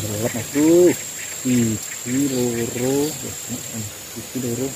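Steady, high-pitched drone of insects in the swamp vegetation, with louder low, pitched calls over it that rise and fall in pitch in short groups, the loudest about half a second to a second in.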